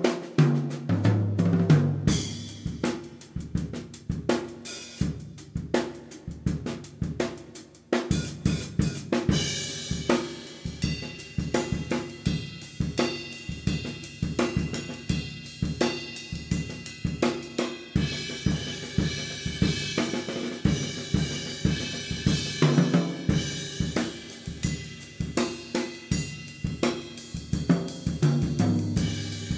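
Background music played on a drum kit: a steady beat of bass drum, snare and hi-hat, with cymbals ringing out from about a third of the way in.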